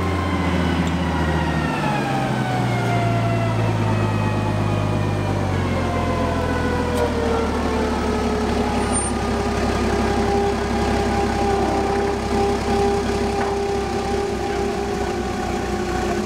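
Engine of an old Clark forklift with a propane tank, running close by as the forklift is driven; its pitch falls over the first several seconds, then holds steady.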